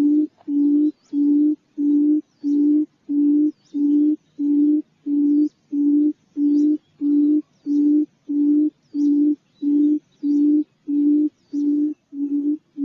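Quail call used as a trapping lure: one low hooting note, steady in pitch, repeated evenly about twice a second, with faint short high chirps above it.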